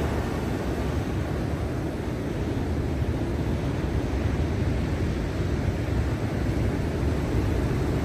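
Turbulent, stormy surf: a steady, low rumble of breaking waves and churning water, with no single crash standing out.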